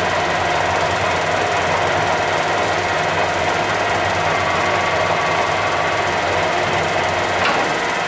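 Clausing Colchester 17x80 lathe running, its gear train and feed drive giving a steady hum with a whine. There is a short clack near the end as a lever on the carriage apron is moved.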